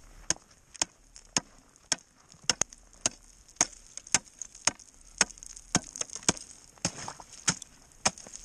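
Repeated sharp strikes of a tool chopping into ice, about two a second at an even pace, opening a hole through the ice.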